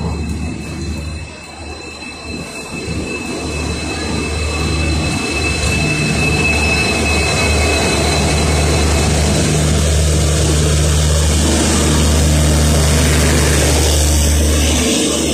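Indian Railways diesel locomotive hauling a passenger train slowly past along a station platform. The engine gives a steady low drone that grows louder from a few seconds in as the locomotive comes alongside, then the coaches roll by. A thin, high wheel squeal is heard over the first several seconds.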